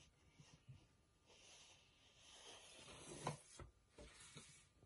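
Faint papery sliding of a kamishibai picture card being pulled from its frame to show the next card, with a few soft knocks near the end.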